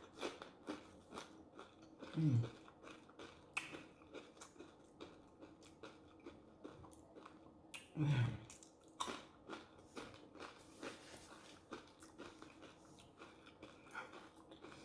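Close-miked chewing and crunching of food, with many small wet mouth clicks. Twice, about two seconds in and again near the middle, the eater gives a short low hum that falls in pitch.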